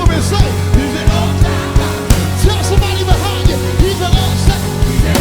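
Live worship band playing, with a steady drum beat, sustained bass and keyboard chords, and voices singing over it.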